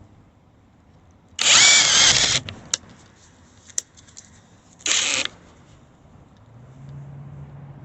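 Greenworks 24V brushless cordless impact driver running in two bursts, one about a second long and then a shorter one of about half a second, with a few sharp clicks between. Near the end a quieter, steady low hum comes in.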